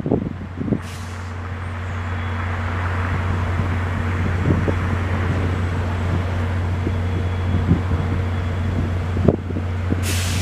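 Steady low drone of a VIA Rail diesel locomotive idling at a station stop, heard at a distance, with a hiss that builds from about two seconds in.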